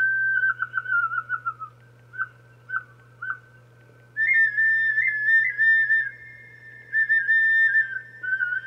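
Small handmade clay flute played in clear, high whistle-like notes. A trilled phrase comes first, then a few short separate notes around two to three seconds in, then from about four seconds in a louder, higher phrase of held and wavering notes.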